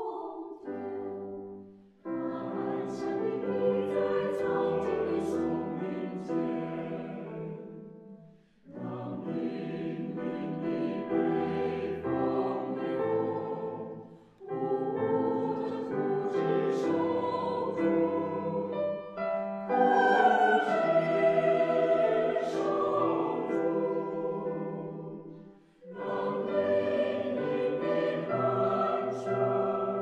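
Mixed choir singing a Mandarin Chinese art song with piano accompaniment, in long phrases separated by brief breaths.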